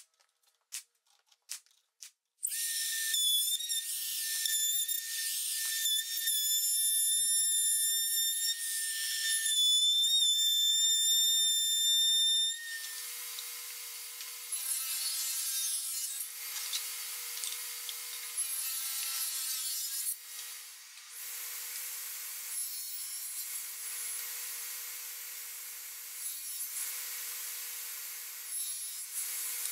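A few sharp shots from a pneumatic brad nailer, then a power saw running and cutting wood with a steady high whine. About twelve seconds in the sound changes to a table saw crosscutting short lengths of wood against a stop block, a lower hum under the cutting noise.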